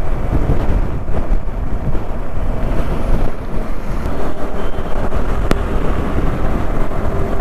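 Strong wind blast buffeting the microphone on a motorcycle riding at highway speed, a steady low rushing with the bike's engine and road noise beneath it.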